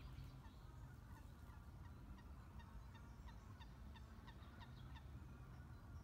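Faint bird calls: a steady run of short, falling chirps, heard over a low steady rumble.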